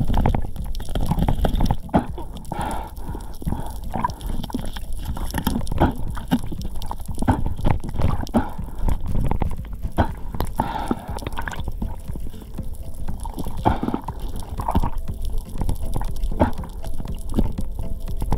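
Muffled underwater noise through a camera's waterproof housing: a steady rush of moving water with irregular knocks and clicks against the housing.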